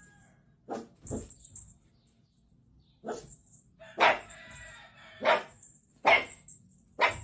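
A dog barking, about seven short, sharp barks with a pause of over a second after the second one.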